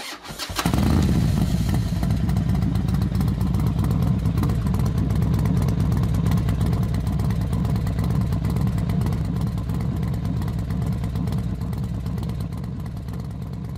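Racing motorcycle engines running steadily, a dense rapid pulsing sound that starts about half a second in and slowly fades toward the end.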